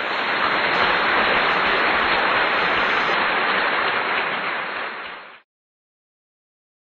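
Steady, even hiss like static that cuts off suddenly about five seconds in, followed by dead silence.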